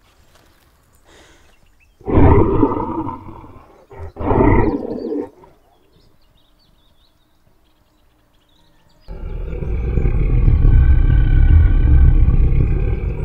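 Loud roaring, like a large wild animal's roar: two short roars about two and four seconds in, then a long one lasting about four seconds near the end.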